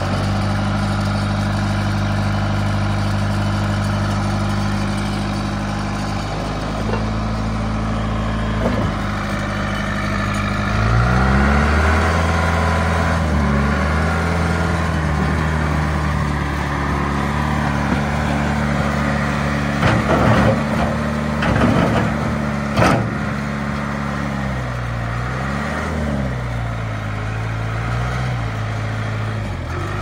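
John Deere 410B backhoe loader's diesel engine idling steadily, then revving up about eleven seconds in and rising and falling in pitch as the machine is worked. A few sharp knocks come in the second half.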